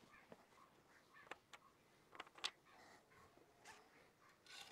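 Faint clicks and taps of the plastic oil filler cap being set on the Maruti Gypsy's G13BB valve cover and screwed down, a few light knocks between about one and two and a half seconds in, over near silence.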